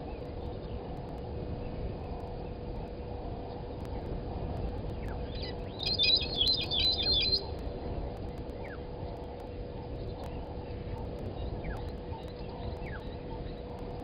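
Brown-headed parrots giving a rapid flurry of high, harsh calls about six seconds in, lasting about a second and a half, with a few fainter single calls later. A steady hum runs underneath.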